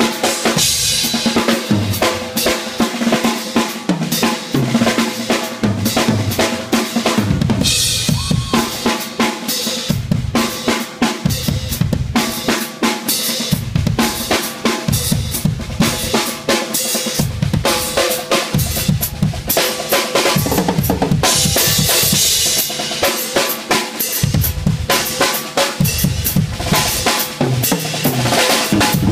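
Drum kit played in a fast, dense solo: bass drum, snare and rimshots hit in quick runs, with cymbal crashes washing over them several times.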